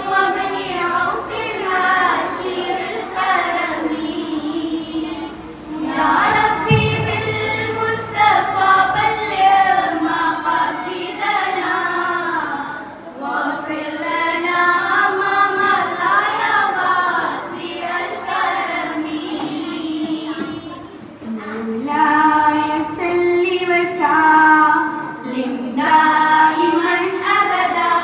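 A group of girls singing an Arabic devotional qasida together into microphones, in long melodic phrases with short breaks between lines.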